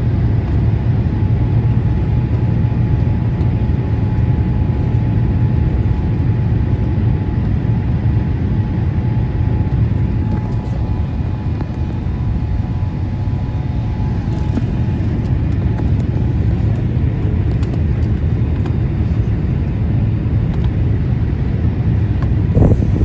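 Steady low rumble of a Boeing 787 Dreamliner's cabin in flight: engine and airflow noise heard from a window seat over the wing, with a faint steady tone through the first part. A brief louder sound comes just before the end.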